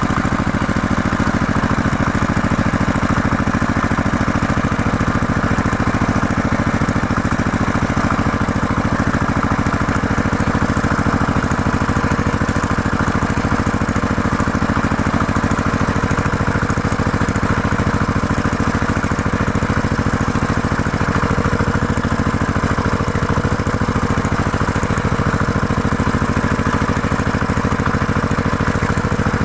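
A heavy machine's engine running steadily at a constant speed, with an even low drone.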